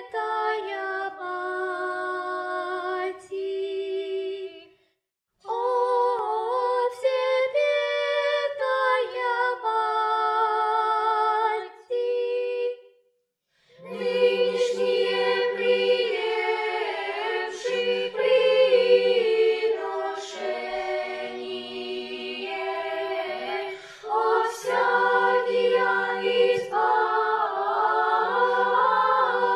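Children singing a cappella: a few high girls' voices for the first twelve seconds, breaking off twice briefly, then a full children's choir in parts with a lower line joining from about halfway.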